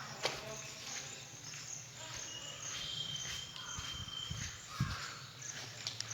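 Outdoor background noise with a low hum and scattered faint clicks, and a thin, high, steady tone lasting about a second and a half from about two seconds in.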